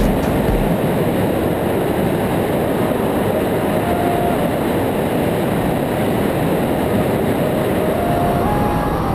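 Loud, steady rush of wind over a camera mounted on the wing of an Aeroprakt A22 Foxbat light aircraft in flight, with the engine and propeller running under it.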